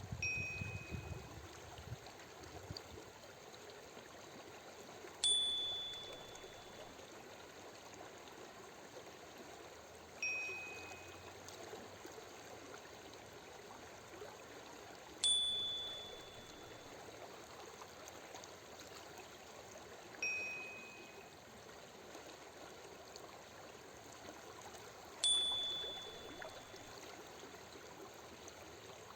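Steady running water, like a stream, with a soft chime every five seconds alternating between a lower and a louder higher note: a breathing-pace cue marking the switch between a five-second in-breath and a five-second out-breath.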